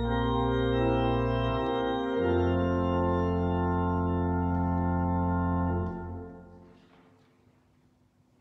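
Church organ playing held chords that change twice, then a final chord released about six seconds in, dying away in the church's reverberation.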